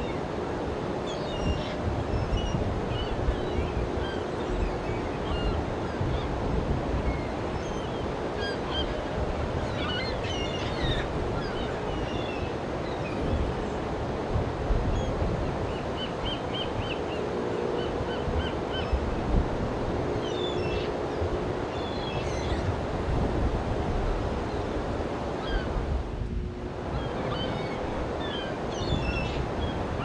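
Steady rushing wash of ocean surf and wind, with small birds chirping now and then and a few short, low honking calls.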